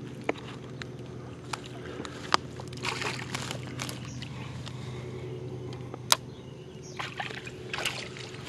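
A hooked largemouth bass thrashing and splashing in shallow water at the bank as it is landed by hand, in two bursts of splashing, about three seconds in and again near the end, with a few sharp clicks over a steady low hum.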